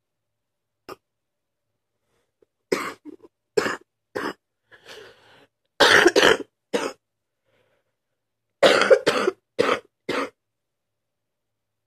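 A sick person coughing in fits on waking. Several short single coughs come first, then a noisy breath in, a louder run of coughs about six seconds in, and a final burst of coughs a little before ten seconds.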